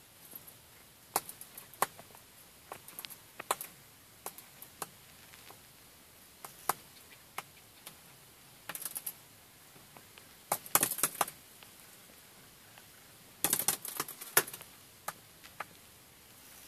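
Sharp, irregular taps and scratches of a small bird's claws and beak on a car windshield, heard from inside the car. Two flurries of rapid tapping and fluttering against the glass come about ten and thirteen and a half seconds in.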